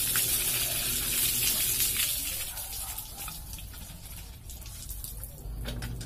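Water gushing from the spout of a cast-iron hand pump and splashing onto the ground, loudest for the first two seconds, then a lighter splashing as hands and a plastic bottle are rinsed under the flow.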